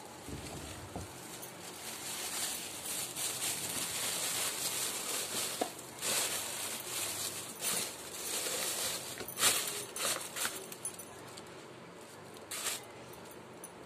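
Thin plastic bag rustling and crinkling as hands open and handle it, with a few sharper crackles.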